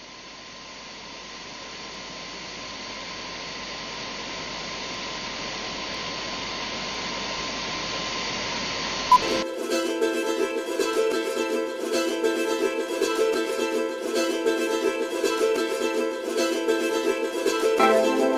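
A steady hiss swells in for about nine seconds and ends with a short click. Then the soundtrack music starts suddenly and runs on at a steady level.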